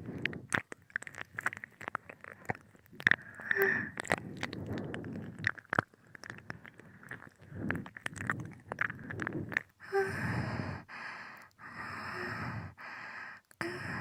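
Wet ear-licking mouth sounds close to a binaural microphone: many quick wet smacks and clicks. From about ten seconds in, several breathy exhalations follow.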